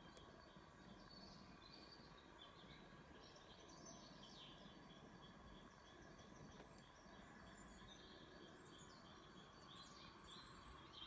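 Faint birdsong: many short, high chirps and twitters scattered over a quiet background hiss.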